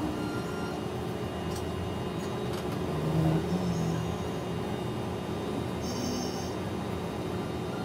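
Steady background noise, a continuous hiss and rumble, with a brief low pitched sound about three seconds in.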